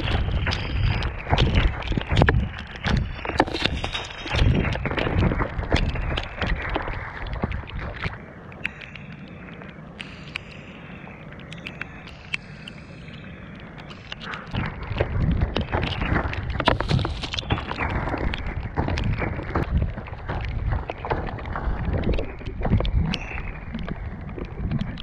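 Off-road inline skates with air-filled tyres rolling through mud and grit, a rough grinding noise full of small clicks and crunches. It goes quieter and steadier for about six seconds in the middle, then picks up again.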